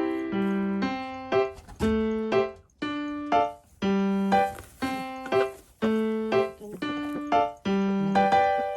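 Background music: a piano melody, notes struck one after another at an even pace and left to ring out.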